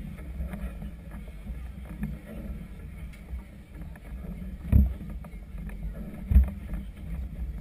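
Steady low rumble of strong wind and choppy harbour water on a boat-mounted camera, with two heavy thumps about a second and a half apart in the second half.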